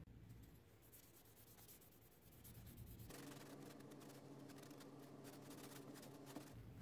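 Faint rubbing and rustling of a cloth being wiped over a cocobolo knife handle scale, with soft scratchy ticks, mostly in the second half.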